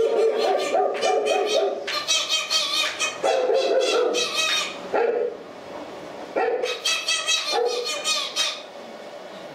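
A puppeteer voicing a dog-like puppet with wordless animal noises, barks and howls, in several long wavering stretches with short pauses.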